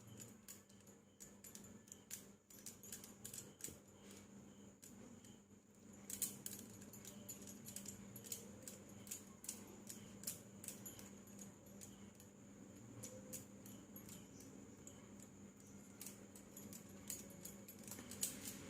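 Faint clicks, taps and scrapes of a utensil against a dish as melted chocolate is spread over a chilled cake layer, growing busier about six seconds in, over a faint steady hum.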